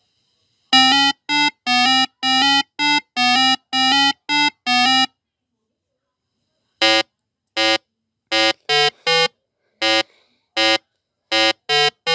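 A horn honking in two runs of short beeps: about nine at one steady pitch, then after a pause about ten shorter honks stepping between two or three pitches like a little tune.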